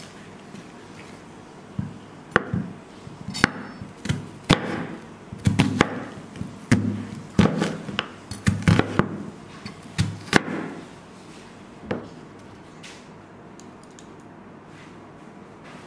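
Chef's knife slicing a peeled onion into wedges on a bamboo cutting board: irregular crisp knocks as the blade cuts through and strikes the wood, with a crunch of onion layers. The cutting stops about twelve seconds in.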